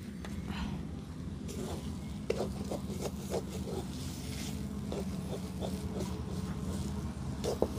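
A metal spatula stirring and scraping mashed potato filling in a steel kadai. It gives a run of short scrapes against the pan from about a second and a half in, over a steady low rumble.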